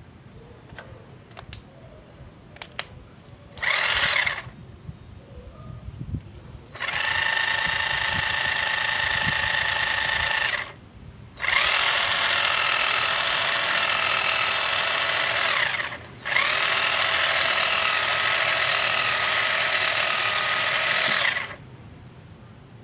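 Corded electric detail sander with a triangular pad, part of a 5-in-1 combo power tool, switched on in four runs: a brief burst about four seconds in, then three longer runs of about four to five seconds each, with a steady motor whine, while a block of wood is held against the sanding pad. Light clicks and handling knocks come before the first run.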